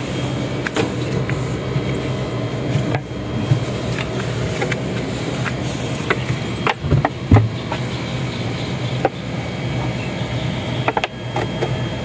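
A diesel generator engine running steadily, with a few sharp plastic knocks and clatters as the cut-off bottle funnel and pail lid are handled, loudest about seven seconds in.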